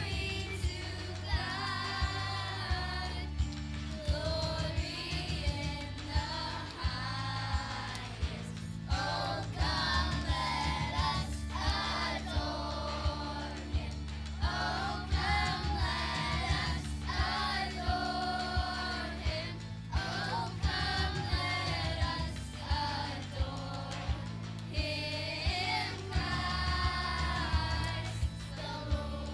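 A Christian song with voices singing over a steady beat and bass line.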